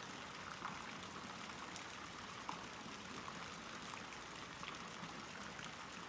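Faint, steady hiss like light rain or running water, with a few soft ticks scattered through it.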